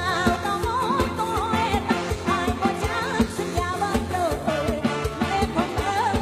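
Live lam sing music, the modern electric form of Isan mor lam: a wavering, ornamented melody line over a steady, fast drum beat and bass.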